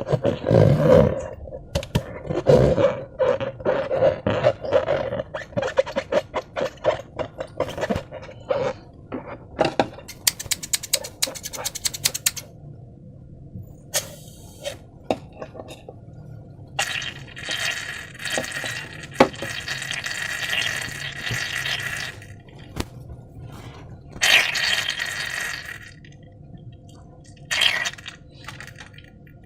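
Hands working slime with a rubber balloon: sticky squelches, clicks and scrapes. There is a quick run of sharp clicks partway through and two spells of hissing, rushing noise in the second half.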